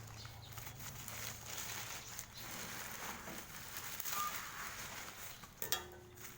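Rustling, scraping and light knocks of a shipping parcel being handled and opened, with a sharper click near the end.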